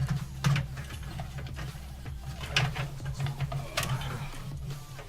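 Hands working cables and parts into a PC case: a few sharp clicks and knocks and some rustling over a steady low hum.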